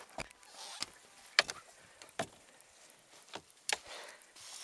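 Scattered sharp knocks and thumps with bursts of rustling, from people moving about in a fishing boat and handling rods and gear.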